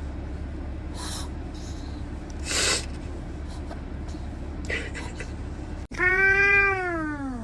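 A cat giving one long meow near the end that rises slightly and then falls in pitch. Before it there are a few short soft rustles over a steady low hum.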